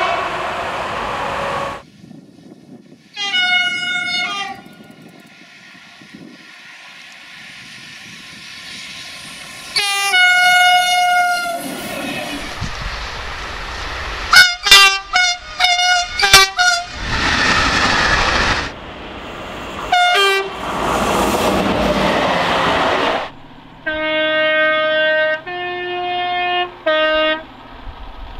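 French trains sounding their horns in a string of separate clips: one long blast about three seconds in and another about ten seconds in, a run of short toots around the middle, and the rush of trains passing between them. Near the end a two-tone horn sounds three notes, stepping up and back down in pitch.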